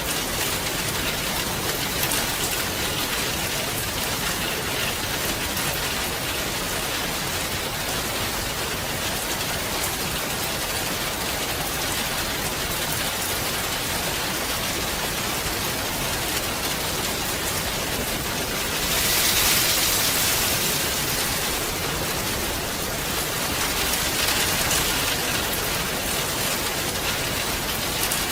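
Steady rain falling and pattering on surfaces. The rain swells louder about two-thirds of the way in, then eases again.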